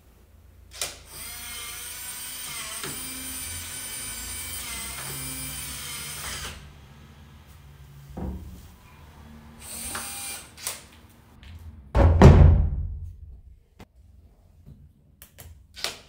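Nuki Smart Lock Pro's motor whirring steadily for about five seconds as it turns the cylinder to unlock and draw back the latch. It is followed by a few short mechanical noises and a heavy thump about twelve seconds in, the loudest sound.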